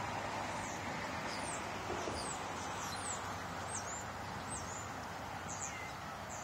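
Steady rush of a fast-flowing, rain-swollen river, with small birds chirping in short high notes every half second or so.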